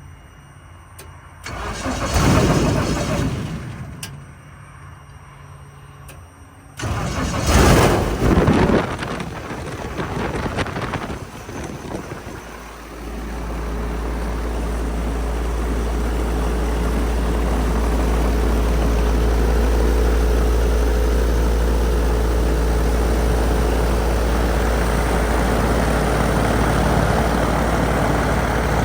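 Viking 130 aircraft engine being started. It is cranked in two short tries, catches on the second, runs roughly for a few seconds, then settles from about thirteen seconds in into a steady, even run.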